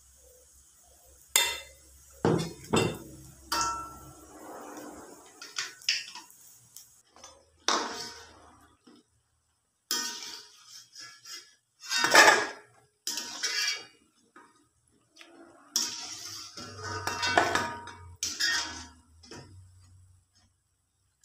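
A metal slotted spoon clanking and scraping against an aluminium wok and a steel plate in irregular knocks as fritters are turned in the oil and lifted out. A faint hiss of frying oil fades after the first few seconds.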